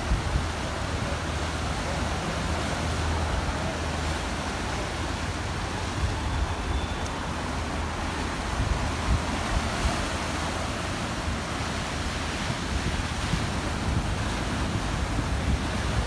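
Sea waves surging and breaking over shoreline rocks in a steady wash of surf, with wind buffeting the microphone as a low rumble underneath.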